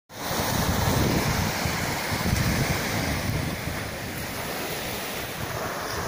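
Small sea waves breaking and washing up onto a sandy beach, with wind buffeting the microphone in a low, uneven rumble.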